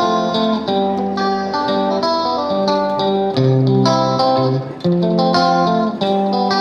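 Guitar music: a melody of plucked notes, each held briefly before the next.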